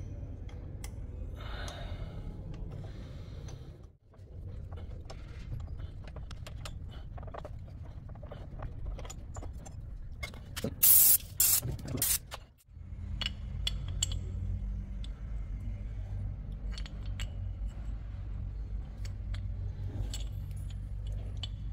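Small metal clinks and scrapes of hand tools and brake-pad parts being worked at a motorcycle's Brembo front brake caliper, with a few short, loud hisses about halfway through.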